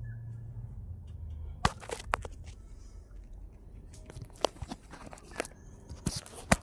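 Irregular sharp taps and clicks, about a dozen of them, scattered unevenly, over a low hum that fades out in the first couple of seconds.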